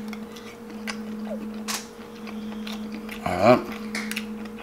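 Close-up eating sounds of seafood being chewed, with small wet clicks and smacks, and a short hummed "mm" about three seconds in. A steady low hum runs underneath.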